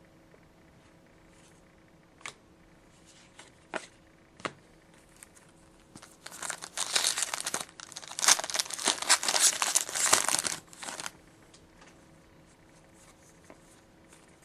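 A trading-card pack's foil wrapper crinkling and tearing as it is opened, after a few light clicks of card handling. The crinkling runs for about five seconds, with a brief pause partway through.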